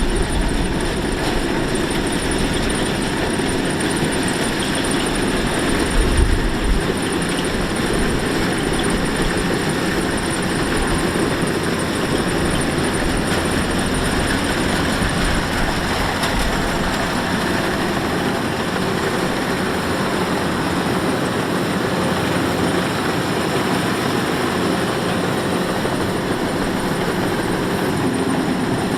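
Kubota DC-105X rice combine harvester running steadily under load: diesel engine and threshing machinery working, with a brief low bump about six seconds in.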